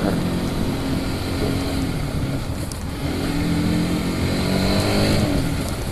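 Sport motorcycle's engine running under way, with wind rushing over the microphone. The engine pitch climbs from about three and a half seconds in and drops back just after five seconds as the rider accelerates.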